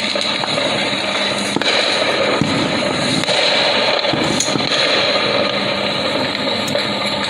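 Fireworks going off all around: a dense, continuous crackle of many overlapping bursts, with a few sharper pops standing out.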